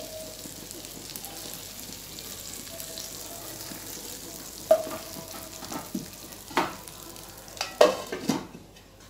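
Masala gravy sizzling steadily in a wok as stuffed okra is lifted out with a wooden spatula. From about halfway in come several knocks and clinks of the spatula on the pan and steel bowl, the loudest near the end as a glass lid is set on the wok.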